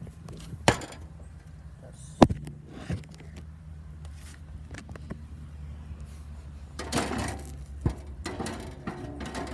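Metal lawnmower parts being handled and set down: several sharp clinks and knocks, the loudest about two seconds in, with some rustling near the end, over a steady low hum.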